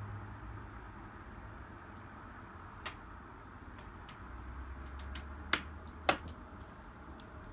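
Model diesel locomotive moving slowly along the layout's track: a low hum with a few sharp clicks, the loudest about six seconds in.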